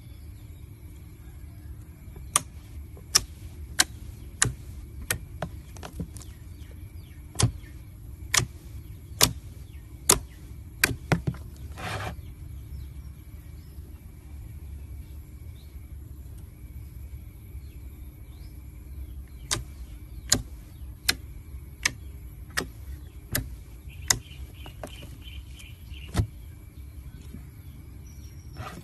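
Pink slime being pressed and stretched by hand, giving sharp pops and clicks as trapped air pockets burst. The pops come in irregular runs, a quiet stretch in the middle, over a steady low hum.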